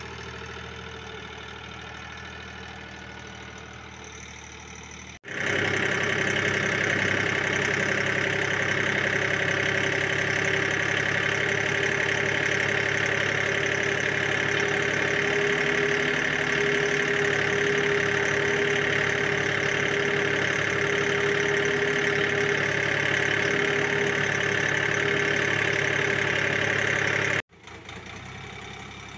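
Shifeng SF244C compact tractor's diesel engine running steadily as it pulls a three-section cultivator through the soil. It is heard from a distance at first, then much louder and closer from about five seconds in, then distant again near the end.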